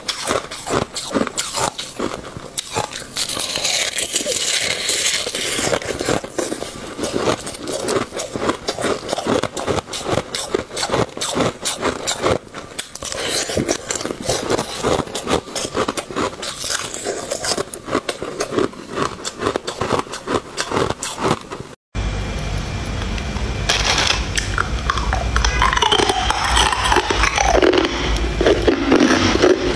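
Ice being bitten and chewed close to a clip-on microphone: a dense, irregular run of crunching and crackling. About two-thirds through, the sound cuts briefly, and a steady low hum follows with scraping and squeaking sounds that rise and fall.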